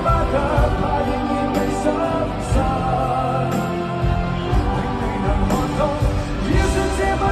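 Live concert music: a male singer singing into a microphone with a full band, heard from the seats of a large arena.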